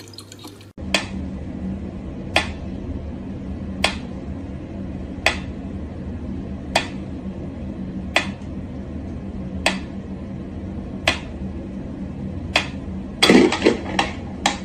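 Mechanical pendulum metronome ticking slowly and evenly, about one sharp tick every second and a half. Near the end comes a short flurry of louder knocks and clatter.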